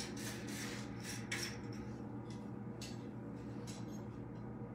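Light metal-on-metal scraping and clinking strokes as iron is worked at the anvil, about four a second for the first second and a half, then slower and more spaced, over a steady low hum.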